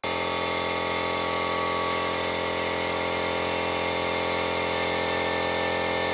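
Compressed-air paint spray gun spraying paint: a steady hiss with a steady hum of several tones underneath. The high hiss briefly thins twice, around one and a half and three seconds in.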